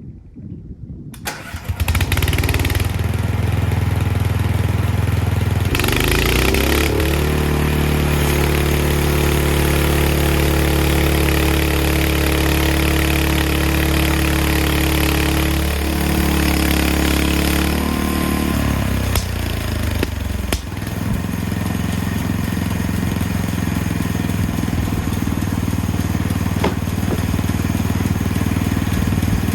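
Small gasoline engine of a portable bandsaw mill starting about a second in and running, speeding up a few seconds later and holding a higher pitch, then dropping back to a lower, steady speed about two-thirds of the way through.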